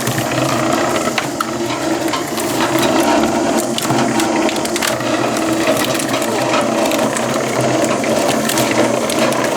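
Concrete mixer running with sand in its drum: a steady mechanical hum with constant rattling and ticking.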